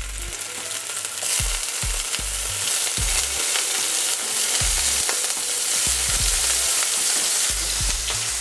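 Halloumi slices sizzling in hot oil in a frying pan, with scattered pops and spits; the sizzle swells about a second and a half in.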